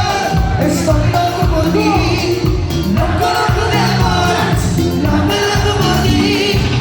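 Cumbia band playing live, with a singer's voice over a steady bass-and-percussion beat.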